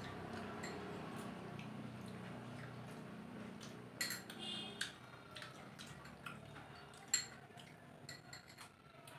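Spoons clicking and scraping against small bowls as several people eat, with a sharper clink about seven seconds in. A low hum underneath fades out around halfway.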